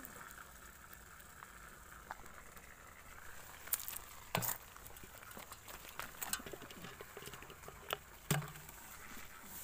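Plastic clicks and knocks as a water bottle is handled against the bars of a plastic pigeon transport crate, a few sharp ones standing out over a faint crackly hiss.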